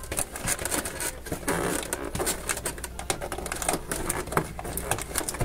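Fingers picking and scratching at a stuck cardboard advent-calendar door, a rapid run of small clicks, scrapes and cardboard rustles.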